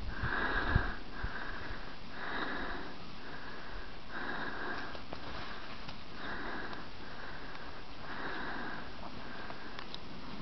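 Border collie sniffing and snuffling with her nose down in snow: a regular run of breathy sniffs, about one a second, stronger and weaker in turn. There is a low thump shortly before the first second.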